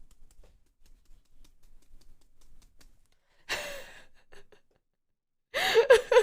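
A person's sharp gasping in-breath about halfway through, then a loud voiced sneeze near the end.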